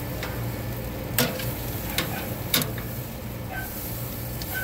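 Cowboy steak sizzling as it sears on a hot charcoal grill, with a few sharp pops or clicks over the steady sizzle and a low hum underneath.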